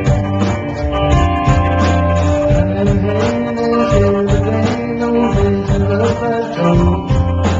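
Rock band playing a song live, with guitars, bass and drums, recorded loud on a small handheld camcorder's microphone.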